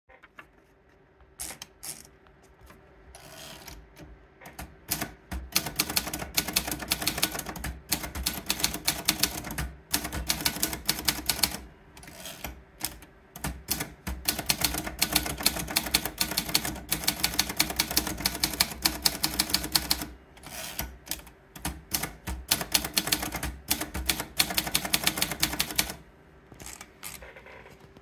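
Olympia Progress manual portable typewriter. It opens with a few scattered clicks as a sheet of paper is wound into the platen. Then comes a long run of fast, sharp keystrokes as three lines are typed, with short breaks between lines and a few clicks near the end.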